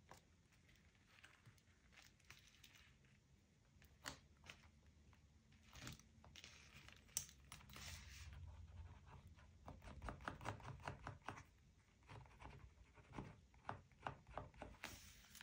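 Faint paper handling: light taps and rustles, with quick runs of crackling ticks from paper being torn, about two-thirds of the way in and again near the end.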